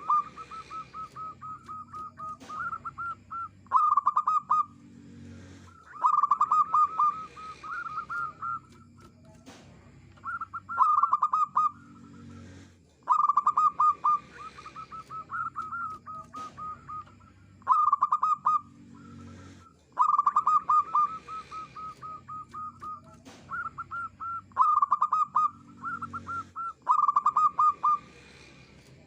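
Zebra dove cooing: bouts of quick, stuttering coo notes, a new phrase every two to three seconds.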